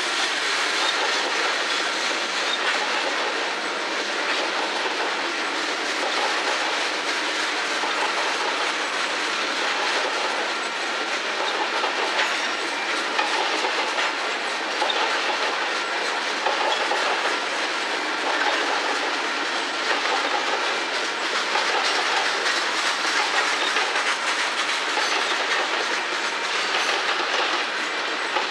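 Covered hopper cars of a potash freight train rolling steadily past on the rails: a continuous rumble of wheels on rail, with the wheels clicking over the rail joints.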